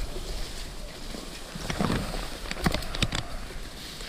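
Leafy brush rustling and scraping against the body and camera as someone pushes through it, with a few sharp twig snaps.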